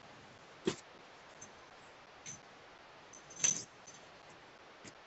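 Cats playing on a wooden floor: a few scattered short knocks and scuffles, the clearest a soft thump just under a second in and a brief metallic jingle about three and a half seconds in.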